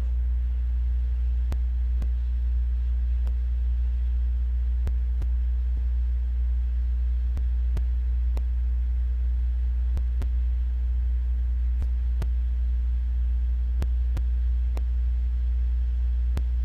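Steady low electrical hum, unchanging in level, with faint scattered clicks.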